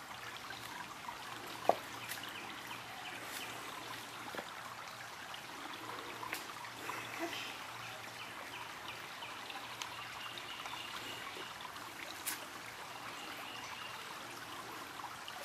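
Shallow stream trickling over rocks, a steady light rush of water. A few short sharp knocks sound over it, the loudest just under two seconds in.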